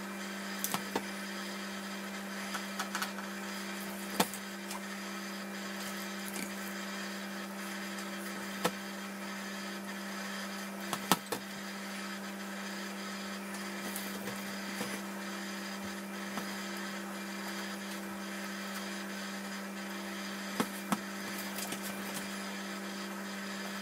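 A spatula scraping sticky scone dough and tapping against a glass mixing bowl and a metal baking tray, in scattered light clicks and knocks, over a steady electric hum.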